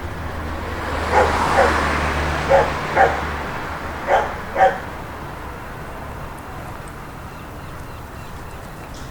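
A dog barks six times, in three quick pairs, while a vehicle passes by, its hiss swelling and fading under the barks.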